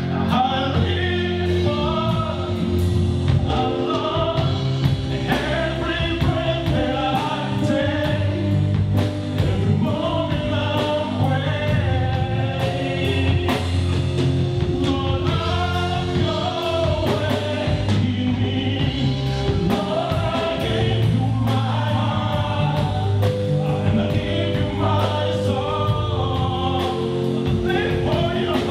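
Several voices singing a gospel worship song together over sustained instrumental backing, with light regular percussion ticks.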